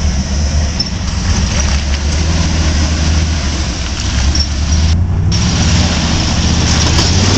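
Jeep Wrangler engine running steadily at low revs while crawling over rocks.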